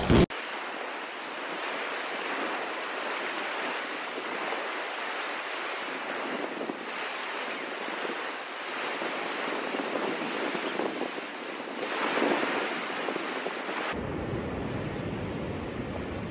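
Ocean surf washing up on a sand beach, a steady hiss that swells as waves break, with a brief loud thump right at the start. Near the end the sound changes abruptly and a low rumble comes in.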